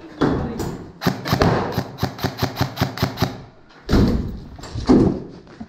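A rapid string of about a dozen airsoft gun shots at about five a second, with heavy thumps before and after.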